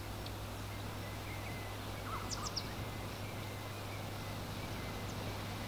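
Steady outdoor hiss over a faint low hum, with a few short, high bird chirps; the clearest is a quick group of three about two and a half seconds in.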